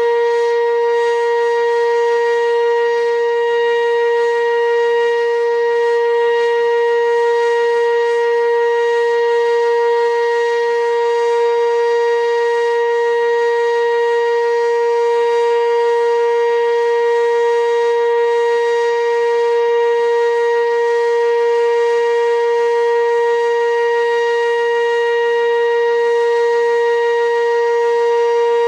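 Sentry 15V2T dual-tone outdoor warning siren sounding a loud, steady tone during a siren test, holding one pitch without rising or falling.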